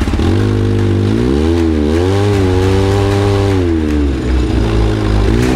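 A 6x6 mini truck's engine revs up and down as it is driven hard. It climbs about a second in, holds high, drops away around four seconds and revs up again near the end.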